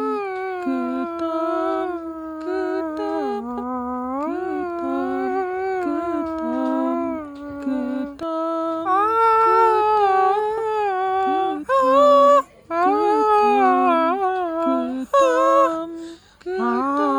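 A voice humming a slow, mournful Hindustani-style melody in long wavering, gliding notes. It breaks off briefly twice near the end.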